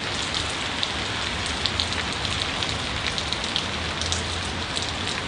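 Steady rain falling, a continuous hiss dotted with many small drop ticks, cutting in suddenly out of silence.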